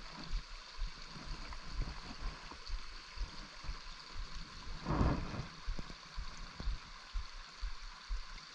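Small woodland stream running steadily, with irregular low thumps throughout and one louder rushing thump about five seconds in.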